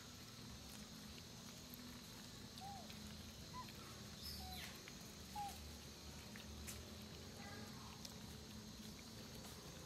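Faint outdoor background with a few short, arched chirping animal calls, about one a second through the middle, and one brief falling squeak.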